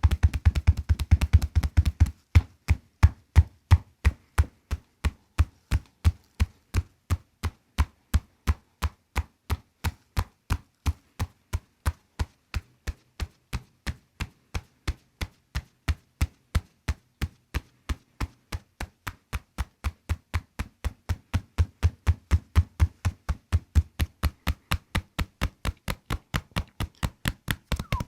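A steady, rapid series of sharp taps, about three a second, evenly spaced and strongest in the low end, running unbroken and growing louder near the end.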